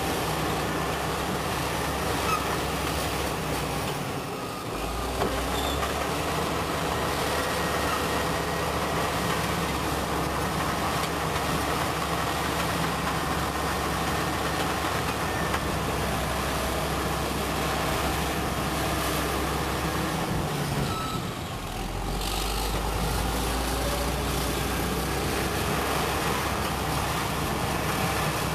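Caterpillar crawler bulldozer's diesel engine running steadily as the machine works loose rock with its blade, dipping briefly twice, about four and a half and twenty-one seconds in.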